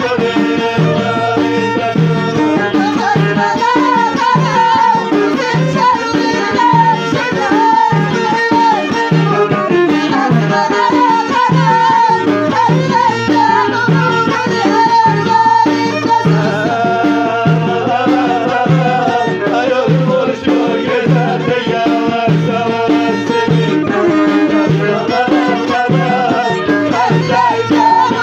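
Middle Atlas Moroccan folk music: a steady, evenly spaced hand-drum beat under a winding melody line.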